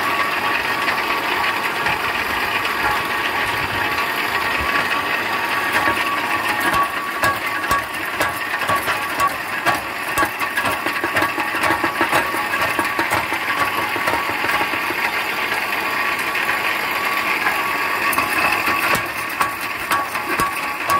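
Homemade guillotine-type branch shredder running, its knives driven through a reduction gearbox and roller chain: a steady mechanical rattle with fast clicking and a steady high tone.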